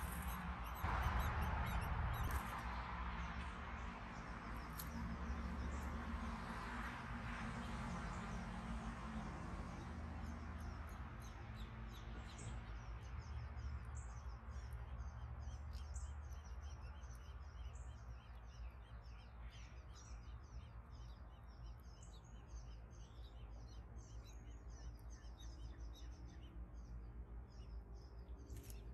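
Small birds chirping: many short, high-pitched notes in quick succession, sparse at first and growing dense from about halfway, over a steady low rumble of background noise.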